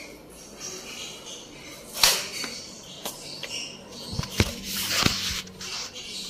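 Handling noises from a plastic fish-food container and the phone being moved about: a sharp click about two seconds in, then a run of knocks and rustles.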